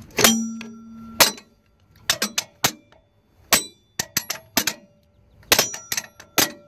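Steel tools striking and knocking against metal parts inside a steel steering clutch housing: about fifteen sharp clinks and clangs at irregular spacing, some in quick runs of two or three, each leaving a brief metallic ring.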